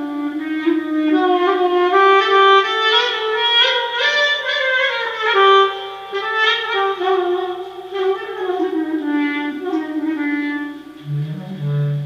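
Solo clarinet playing a taksim, a free-time improvised melody of sliding, ornamented notes that wander up and down. Near the end a low steady tone comes in beneath it.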